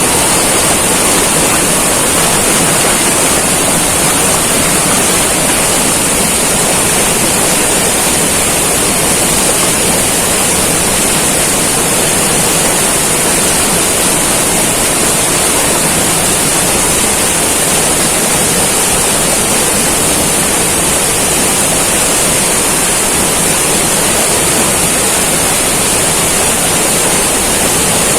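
Heavy rain pouring down steadily, a dense, even hiss with no break or change.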